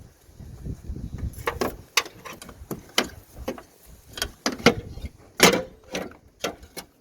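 An irregular series of sharp clicks and knocks as parts are worked loose by hand under a car's bonnet, the loudest knock about five and a half seconds in.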